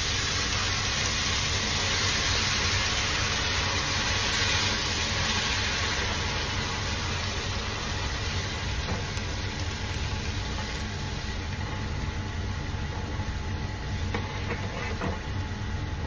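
Water and condensed soup hissing and sizzling in a hot frying pan of chicken, mushrooms and onions as it is stirred, the sizzle easing gradually, over a steady low hum. A few light spatula ticks against the pan near the end.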